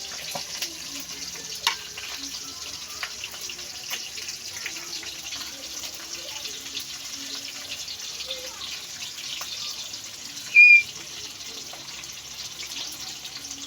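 Galunggong (round scad) frying in hot oil: a steady sizzling hiss with scattered pops and crackles. About ten seconds in, a brief high-pitched tone rises over it.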